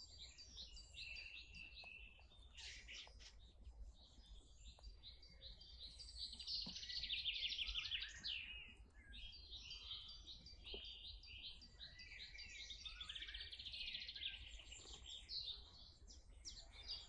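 Several wild birds chirping and trilling without a break, a busy chorus of high calls, densest with rapid trills about six to eight seconds in and again near the thirteen-second mark.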